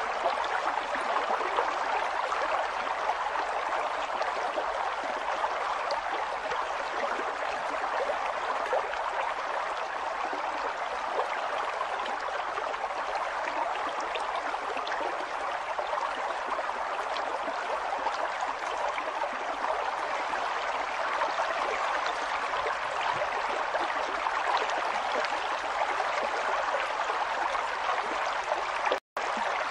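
A river flowing with a steady rushing and gurgling of water. The sound cuts out for an instant near the end.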